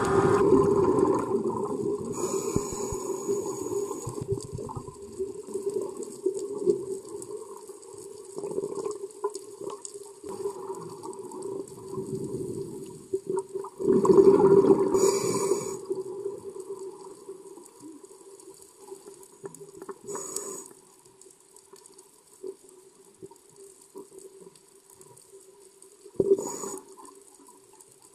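Underwater recording: muffled water noise over a steady low hum, broken by bursts of scuba divers' exhaled regulator bubbles every several seconds. The loudest burst comes about halfway through.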